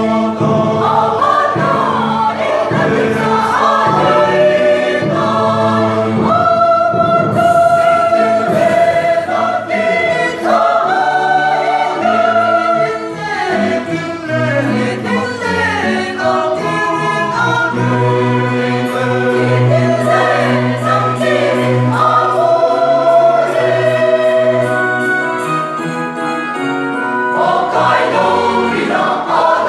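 Mixed church choir of women and men singing in parts under a conductor, with long held chords and a sustained low bass line in the second half.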